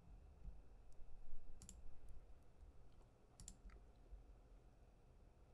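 A few light, sharp clicks, the loudest coming in two quick pairs about two seconds apart, as letters are entered into a crossword grid.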